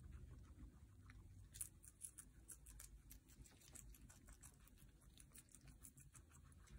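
Guinea pigs chewing shredded carrot and lettuce: faint, rapid, irregular crunching clicks.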